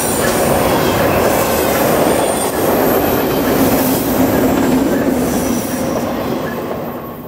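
Freight train of empty double-stack well cars rolling past at close range: a steady rumble of steel wheels on rail with a thin, high wheel squeal. The sound fades away near the end.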